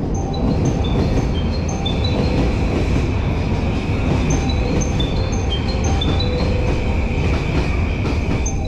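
Train running with a steady low rumble, and a repeating run of short high tones over it.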